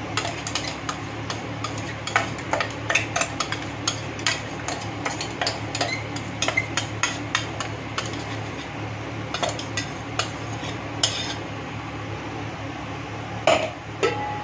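Steel spoon scraping and tapping masala paste out of a steel container into a steel handi, with many quick metal-on-metal clinks and knocks. The clinks fall thickly through most of the stretch, thin out, and two more come near the end.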